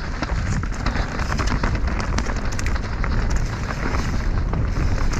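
Mountain bike descending a dirt singletrack at speed: heavy wind buffeting on the action camera's microphone, with a steady stream of quick clicks and rattles from the bike over the bumpy ground.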